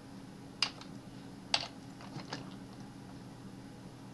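A few sharp clicks of a computer mouse and keyboard, three louder ones spread about a second apart with fainter ticks between, over a low steady electrical hum.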